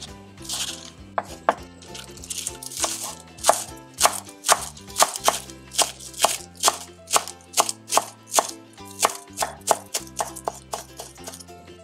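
Chef's knife chopping chives on a wooden cutting board: a steady run of quick chops, about two to three a second.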